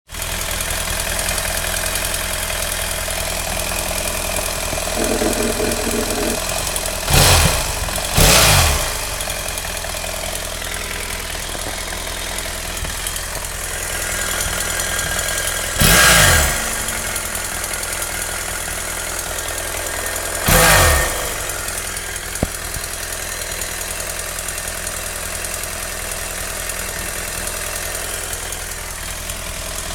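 BMW F800GS / F650GS twin's parallel-twin engine idling hot with a ticking noise, which the owner thinks comes from the right side of the cylinder. The engine is revved briefly four times, twice close together near the start and twice more later.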